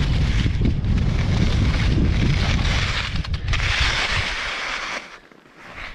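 Skis scraping and hissing over snow while skiing downhill, with wind buffeting the microphone. The scraping is strongest from about three and a half to five seconds in, then the sound drops away sharply.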